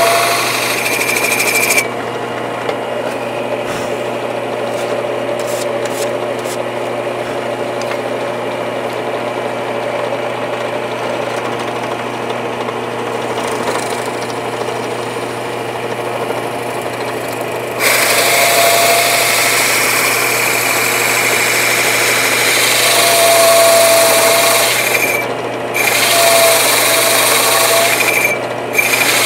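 Drill press running a Porter Cable hole saw through a wood board, drilling the first side of a wheel almost all the way through. Under a steady motor hum, the cutting noise runs softer for most of the first part and grows louder about two-thirds in, easing off briefly twice near the end.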